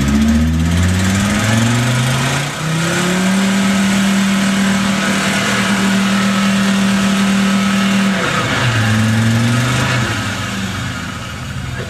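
Off-road 4x4's engine revving hard as it pushes through deep mud. The revs climb in steps and hold high for several seconds, drop suddenly about eight seconds in, rise once more briefly, then ease off.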